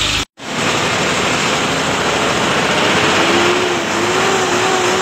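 Road traffic and truck engine noise: a steady, loud rushing sound, with an engine drone coming in about three seconds in and rising slightly in pitch. The sound cuts out for a moment near the start.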